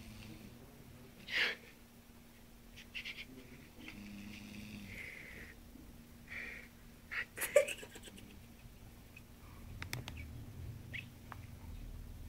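A sleeping man snoring softly, the breaths coming irregularly, with a louder one about a second and a half in and another about seven and a half seconds in.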